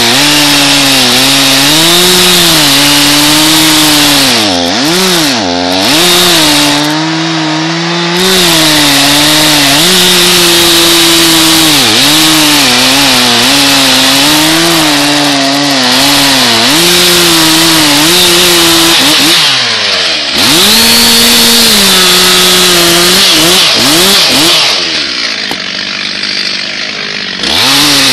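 Stihl MS361 two-stroke chainsaw cutting a fir trunk at high revs, its pitch wavering under load. The revs drop and come back several times, and it runs quieter for a couple of seconds near the end.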